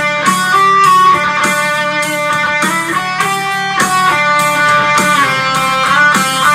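Chapman ML-3 electric guitar with overdrive from a Boss DS-1 pedal, a little delay and boost, played through a Roland Cube amp: single-note lead with string bends about five seconds in, over a backing track with a steady beat.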